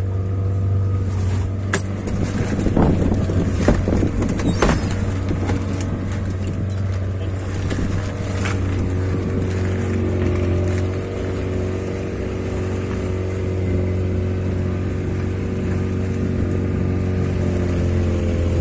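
Boat engine running steadily with a low, even hum. A few sharp knocks and clicks sound between about two and five seconds in, and once more around eight seconds in.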